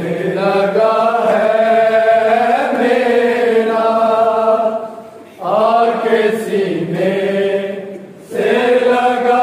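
A noha khawan party chanting a noha, a Shia mourning lament, in long drawn-out sung lines, with short breaks between phrases about five and eight seconds in.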